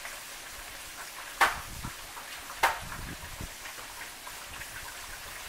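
Thick flour-dredged pork chops frying in a skillet, a steady sizzle. Paper towels are torn from a roll twice, short sharp rips about one and a half and two and a half seconds in.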